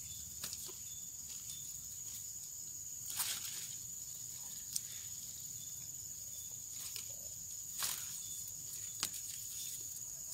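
Hands handling a freshly caught eel and its line on dry, dusty soil: a few short scuffs, rustles and clicks, the loudest about three and eight seconds in. A steady high hiss with faint, evenly repeating chirps runs underneath.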